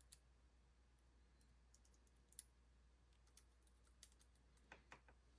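Faint, scattered small clicks of metal lock parts being handled: sliders taken out of an ASSA Desmo lock core and set down one by one.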